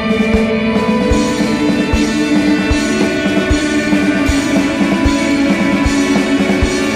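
Instrumental rock music: sustained guitar tones over a steady drum beat, about one beat every 0.8 seconds, with a high cymbal-like hiss joining about a second in.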